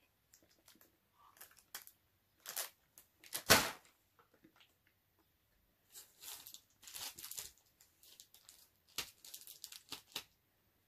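A plastic snack bag being torn open and crinkled in a series of short rustling bursts. The loudest burst comes a little over three seconds in.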